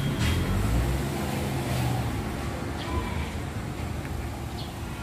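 Steady low rumble of motor vehicles running, with an engine note strongest in the first two seconds.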